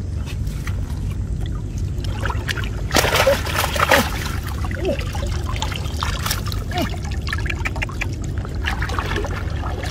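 Water trickling and pouring off a mesh fish trap as it is lifted and shaken out of the floodwater, with louder splashing about three to four seconds in.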